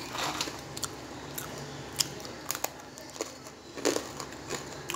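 Crisp fried gram-flour pepper kara sev crunching, with irregular snaps and crackles. It is the crunch of sev fried properly crisp.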